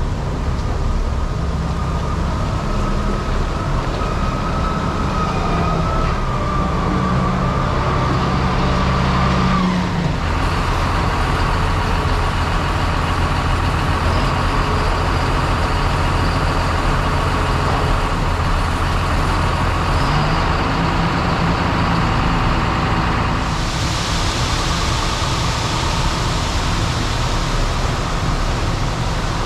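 Combine harvester running steadily at work, its engine note mixed with a high whine from the machinery. The tone shifts about ten seconds in, and a broad hiss comes in near the end.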